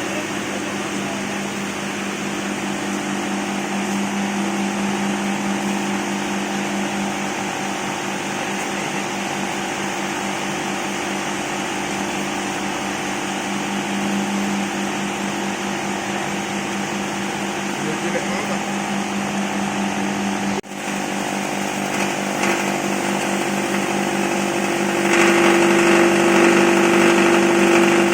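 Electric corn-cob grinding machine running with a steady mechanical hum. It breaks off briefly about two-thirds of the way through, then runs on and grows louder near the end.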